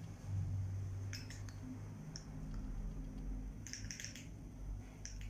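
Handheld spirit box sweeping through radio stations: a steady low hum broken by short clusters of quick clicks, about a second in and again around four seconds in.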